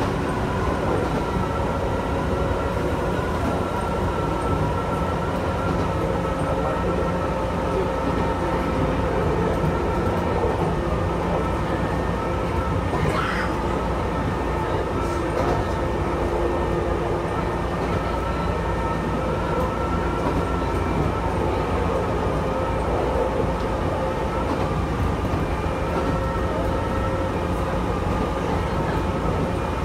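Chichibu Railway electric train running at a steady speed, heard from inside the front car: a continuous low rumble of wheels on track with a steady whine over it. A brief higher-pitched sound stands out about thirteen seconds in.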